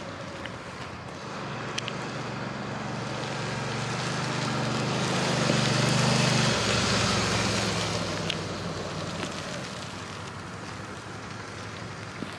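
Motorcycle engine running at low speed through a slalom, growing louder as the bike comes close about six seconds in, then fading as it rides away.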